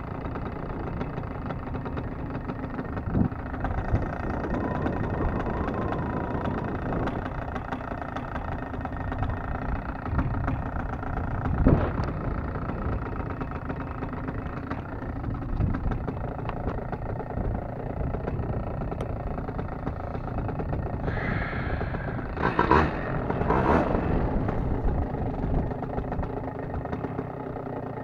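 Paramotor engine idling steadily, with a few brief louder surges, the clearest two about 23 seconds in.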